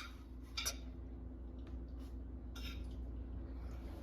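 Quiet room tone with a steady low hum and a faint click about half a second in.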